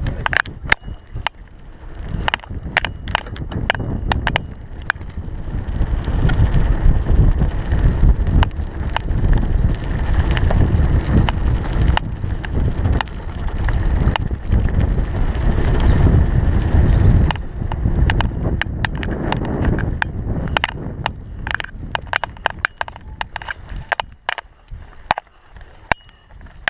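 Mountain bike rolling down a gravel forest trail: tyres crunching over stones and the bike rattling with constant sharp clicks, while wind rushes over the microphone. The low rumble is heaviest through the middle and eases off near the end.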